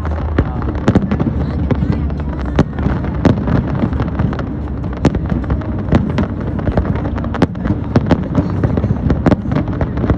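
Fireworks going off in an irregular string of sharp bangs, over a steady din of voices.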